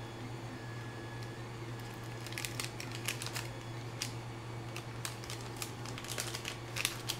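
Irregular light clicks and rustles of small electronics parts being handled on a workbench, starting about two seconds in, over a steady low hum.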